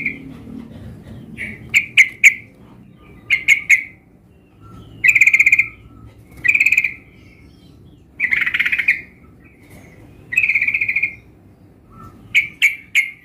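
Yellow-vented bulbul (trucukan) calling: a run of short, trilled notes, each half a second to a second long, repeated every second or two, with three groups of quick sharp notes, one about two seconds in, one near four seconds and one near the end.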